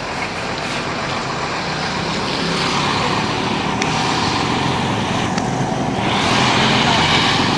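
Road traffic: the engine and tyre noise of passing vehicles, a steady rushing sound that grows louder and jumps up about six seconds in as a vehicle comes close.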